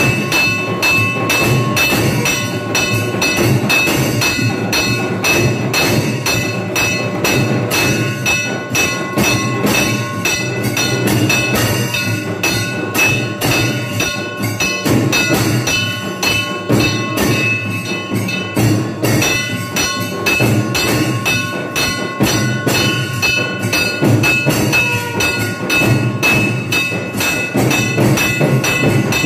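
Temple bells and drums beaten together in a fast, steady rhythm of about four or five strikes a second, with the bells ringing on over the beat, the usual accompaniment to the priest's offering of worship to the deity.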